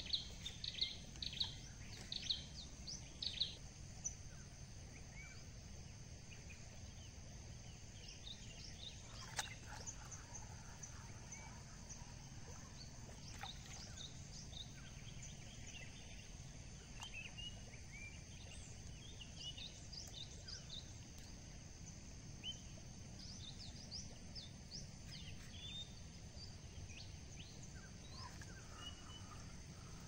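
Wild birds chirping and calling in short high notes, with a quick run of louder chirps in the first few seconds and scattered calls after that, over a steady low outdoor background noise.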